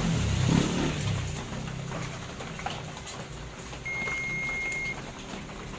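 Multimeter continuity beep: one steady high tone lasting about a second, about four seconds in, showing that the probed circuit on the TV power board reads as shorted. A low rumble is heard during the first second.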